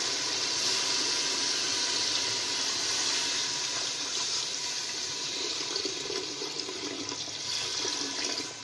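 A stream of water pouring steadily into an aluminium pot, splashing into the browned beef and spice mixture at the bottom.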